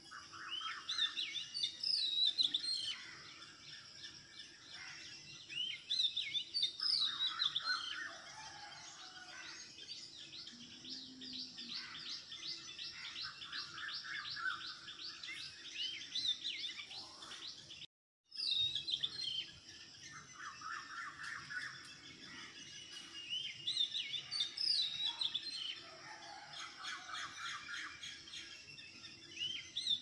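Several birds chirping and singing in overlapping short phrases, with a long fast trill of repeated notes in the middle; the sound cuts out completely for a moment about eighteen seconds in.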